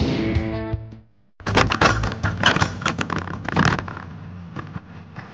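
A brief fading tone from the end of an intro sound effect, a short silence, then about a second and a half in an alpine coaster sled starts rattling and clattering along its steel rail in a fast, irregular run of sharp knocks over a low rumble.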